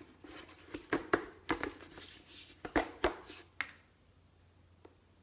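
Hard plastic pressure-washer parts being handled: a run of sharp clicks and knocks lasting about three seconds, then quiet.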